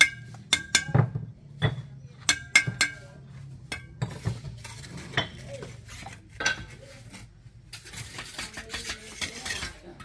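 Dishes or utensils clinking and knocking against each other. About eight sharp, ringing clinks come in the first four seconds, followed by softer, duller knocks.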